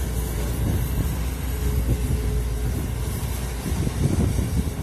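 Komatsu PC200 hydraulic excavator's diesel engine running steadily under load as it digs into wet soil and lifts a full bucket of earth, with a spell of irregular clattering near the end.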